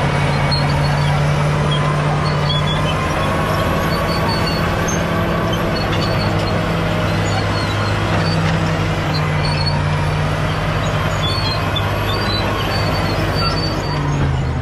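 Caterpillar D7G bulldozer's six-cylinder diesel engine running steadily under work, its note shifting slightly a couple of times.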